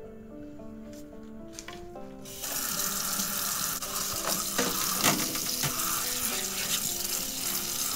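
Kitchen tap turned on about two and a half seconds in, then water running steadily into a stainless-steel mesh colander of asparagus spears in a metal sink as they are rinsed. Quiet background music plays throughout.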